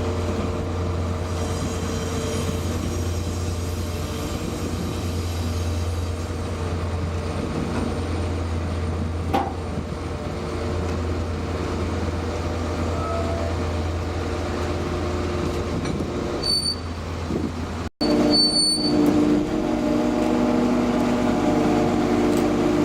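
Heavy truck's diesel engine running steadily while a railway goods van is loaded. It breaks off abruptly about 18 seconds in and resumes with a higher-pitched running note, with a couple of brief squeaks around the break.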